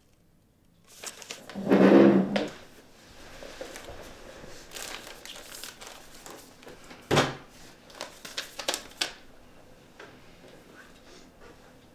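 Household handling sounds in a small room: a loud pitched sound about two seconds in, then scattered knocks and clicks of doors and cupboards.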